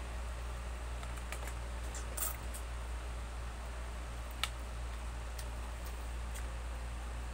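A person eating fried chicken by hand, biting and chewing: a few scattered sharp clicks and crackles, the loudest about two and four and a half seconds in, over a steady low hum.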